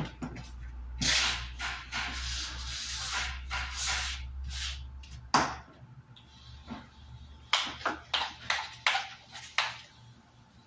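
Hand pump pressure sprayer hissing as it mists liquid over a flat sign panel: a long stretch of spraying, then several short squirts near the end.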